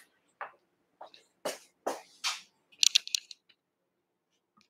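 A few short rustles, then a quick run of sharp clicks about three seconds in.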